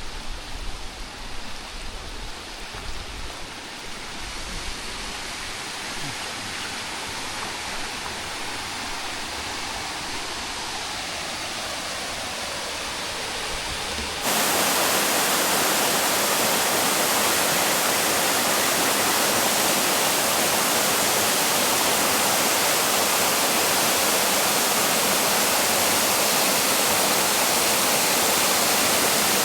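Steady rushing of a waterfall. About halfway through it cuts abruptly to a louder, hissier rush, as from much nearer the falling water.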